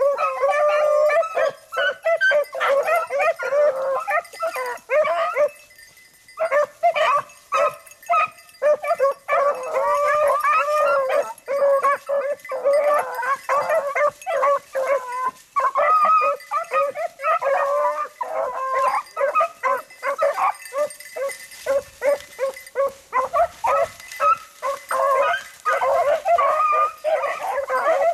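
A pack of beagles baying together, many overlapping voices calling almost without a break, with a brief lull about six seconds in. This is hounds in full cry as they run a rabbit's trail.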